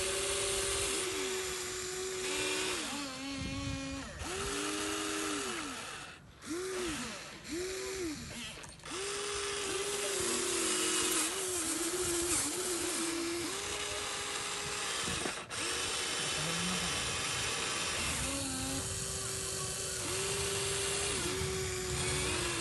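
Electric motors of a radio-controlled model excavator whining as it digs, starting and stopping in short spells of about a second or two, the pitch sagging now and then under load.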